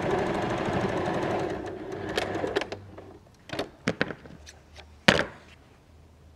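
Janome electric sewing machine stitching a short seam across a box corner of a bag lining for about two and a half seconds, then stopping. A few clicks and rustles follow as the fabric is handled, with one sharp knock about five seconds in.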